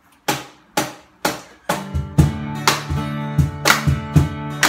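Acoustic guitar strummed in a steady rhythm, about two strums a second. It starts with separate strums, and from about two seconds in the chord rings on fuller between the strokes.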